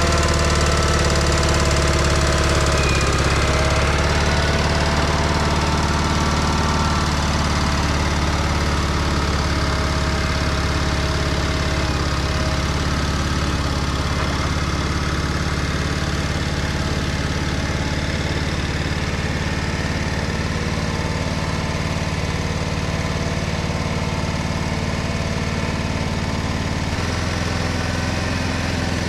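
Small gasoline engine running steadily at idle after being started; its note shifts slightly near the end.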